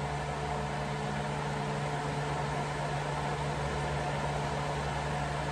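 Chicken wings frying in hot grease in a cast-iron skillet: a steady sizzle, with a low steady hum underneath.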